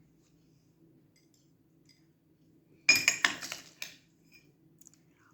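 Kitchen utensils clattering and clinking against dishes in a quick cluster of knocks that lasts about a second, starting about three seconds in, over a faint steady hum.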